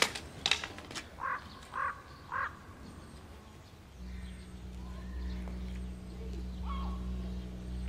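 A crow cawing three times, about half a second apart, just after a single sharp click. About halfway through, a low steady drone comes in and holds.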